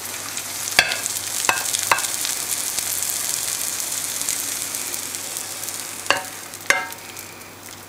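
Sujuk slices and fried eggs sizzling in hot fat in a frying pan with the heat off, the sizzle slowly fading as the food slides onto a serving plate. A few sharp knocks of the pan against the plate, three early on and two near the end.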